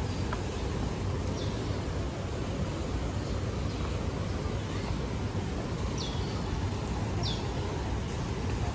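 Steady outdoor city rumble, typical of distant traffic, with a few short, high falling chirps now and then.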